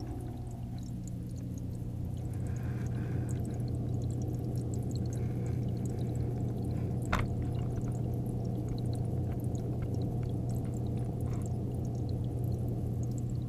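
Muffled underwater sound of a running aquarium, heard from a camera submerged in the tank: a steady low hum with water noise and faint scattered ticks. A single sharp click about seven seconds in.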